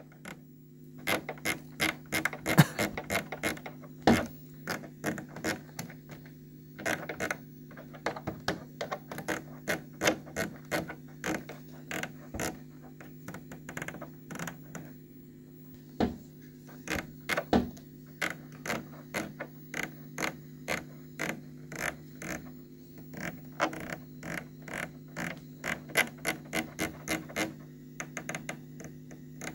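Rapid runs of clicks from the Lexicon effects program selector knob on a Soundcraft EFX12 mixer being turned back and forth through its detents, over a faint steady low hum. The knob is being turned to switch the effects bank from A to B.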